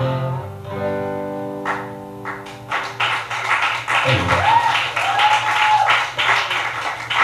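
The final chord of an acoustic guitar rings out and fades. About three seconds in, the audience breaks into applause, with a whistle in the middle of it.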